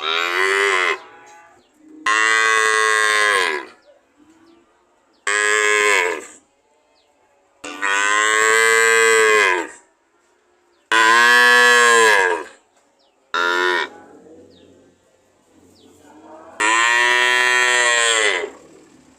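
A cow mooing over and over: seven separate moos, most lasting one to two seconds and one much shorter, with gaps of about a second or two between them.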